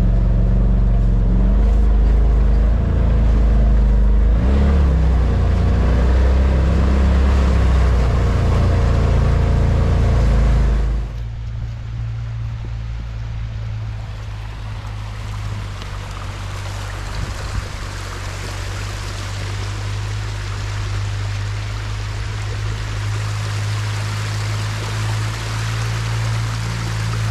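Engine running steadily. About eleven seconds in it drops abruptly to a quieter steady run with a hiss over it.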